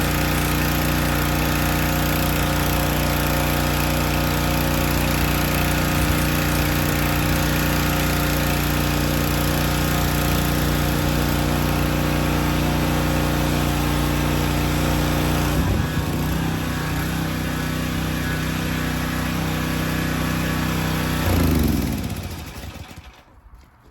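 Predator gas pressure washer engine running steadily, with the hiss of water spraying through a 14-inch surface cleaner. Its note changes about two-thirds of the way through. Near the end the engine is shut off and winds down to quiet.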